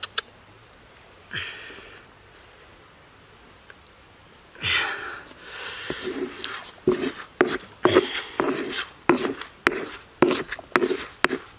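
Stone pestle pounding chilies and garlic into a paste in a stone mortar, a steady run of dull strikes about two a second that starts a little past halfway. Before that, a few brief handling noises.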